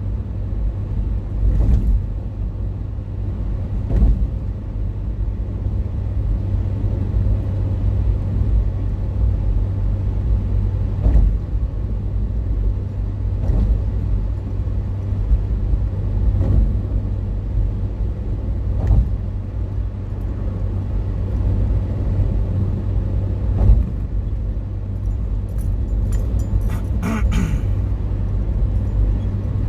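Car cabin noise at highway speed: a steady low rumble of engine and tyres on the road, with a soft knock every couple of seconds and a brief rattle near the end.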